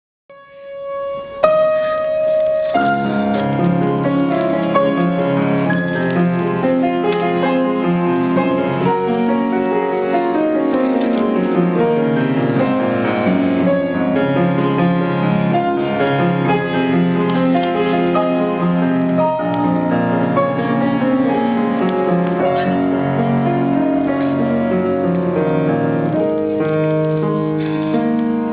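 Piano music, slow and sustained, with chords and notes held over several seconds; it begins a second or so in and plays steadily throughout.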